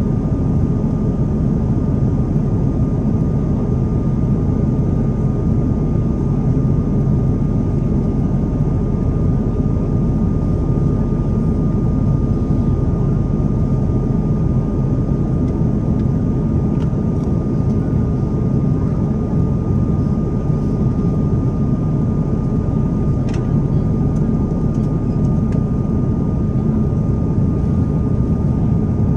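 Steady cabin noise inside an airliner in flight: an even, deep rumble of engines and rushing air, with a thin steady whine above it.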